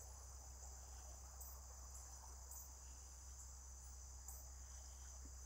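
Faint, steady chorus of crickets, a continuous high-pitched trilling over near silence.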